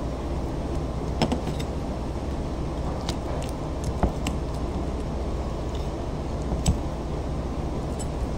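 Steady low mechanical hum of kitchen machinery, with a few sharp knocks and clicks as a whole sea bream and its cut fillet are handled and set down on a plastic cutting board; the knocks come about a second in, about four seconds in and near six and a half seconds.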